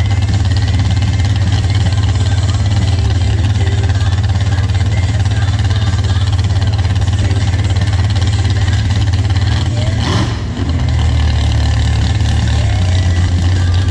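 Pickup truck's engine idling steadily at the start line while hooked to the pulling sled, with a brief change in the sound about ten seconds in.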